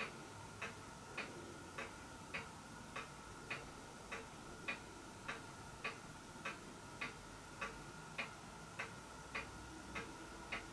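Faint, steady mechanical ticking, a little under two ticks a second, like a clock, over a faint steady hum.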